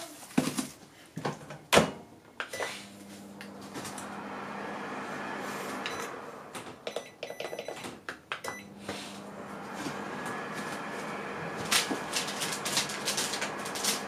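Toshiba Ishigama Dome microwave oven being loaded and started: a container set down and the door shut with sharp knocks, short key-press sounds as the heating time is set, then the steady hum of the oven running. A few light clicks sound near the end over the hum.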